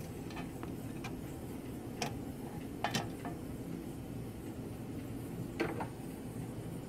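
A few light clicks and taps from the EdgeRouter PoE's perforated metal lid as it is handled and lifted off the chassis, the clearest about three seconds in and near the end, over a steady low hum.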